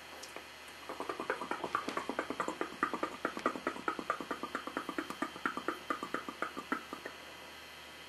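A fast, even rhythm of short beats, about six a second, starting about a second in and stopping about seven seconds in.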